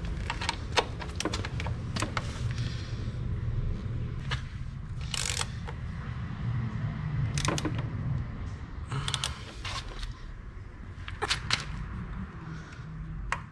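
Metal clicks, taps and short scrapes as a steel exhaust safety spring is stretched with a hooked tool and hooked onto the joint between a Mivv silencer and the link pipe, over a low steady rumble.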